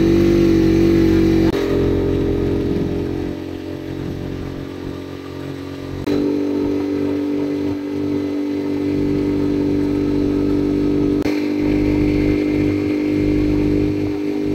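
Rusi Chariot 175 motorcycle engine running at a steady cruising speed. Its note shifts suddenly three times, at about a second and a half, six and eleven seconds in.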